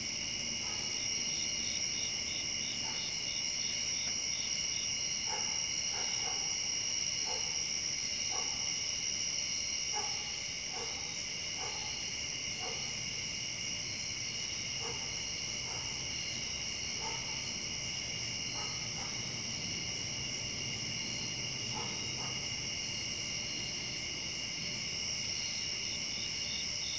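Night chorus of insects such as crickets, several steady high-pitched trills layered together, with a faster pulsing trill near the start and again near the end. Short, lower-pitched calls sound every second or so through the first two thirds.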